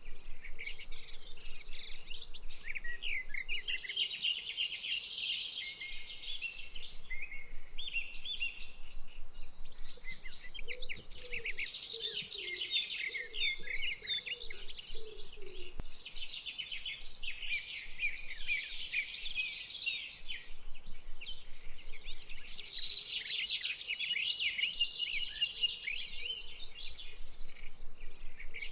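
Many small birds chirping and singing at once in a dense, continuous chorus of quick high chirps and trills. A fainter, lower warbling call joins in for a few seconds in the middle.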